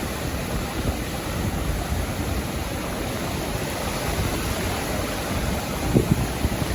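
Sea surf washing steadily onto a beach, a continuous rushing wash, with a brief buffet of wind on the microphone about six seconds in.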